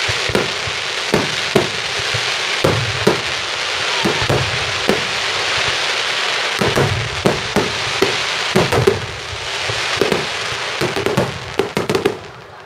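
Aerial fireworks in a finale barrage: many shells launching and bursting in quick, irregular succession, several bangs a second over a continuous hiss. Near the end the hiss drops away and single sharp bangs stand out.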